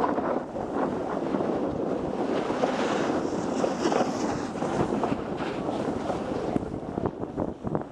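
Wind rushing over an action camera's microphone while riding fast down a groomed ski run, mixed with the scrape of edges carving packed snow. The rush grows harsher and brighter about three seconds in.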